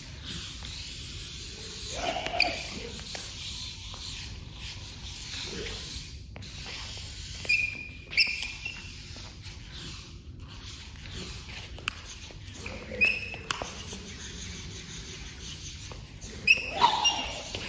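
Diabolo spinning on its string, with a steady rubbing hiss of the string running over the axle. A few short squeaks and knocks come about two seconds in, around eight seconds, around thirteen seconds and near the end, as the diabolo is thrown and caught.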